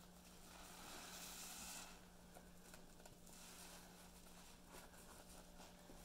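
Foam-soaked sponges squeezed and squished by hand in sudsy water, faint: a wet fizzing hiss of foam from about half a second to two seconds in, then scattered soft crackles and pops.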